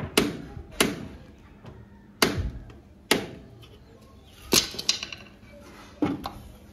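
About six sharp knocks, irregularly spaced about a second apart, some with a short ring: tool strikes as a mechanic works the front hydraulic filter of a tractor loose.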